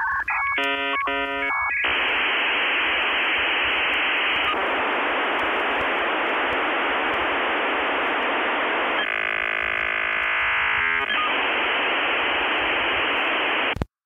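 Radio static: a steady hiss with no low end and no top end. About half a second in there is a short run of stepped electronic tones, like a radio being tuned, and about nine seconds in a buzzy tone for about two seconds. The hiss cuts off suddenly just before the end.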